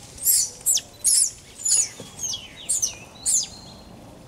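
Long-tailed macaque giving a rapid series of shrill squeals, each falling in pitch, about two a second.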